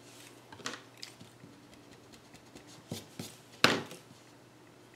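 Pen writing on a paper worksheet: a few short scratchy strokes, the sharpest and loudest about three and a half seconds in.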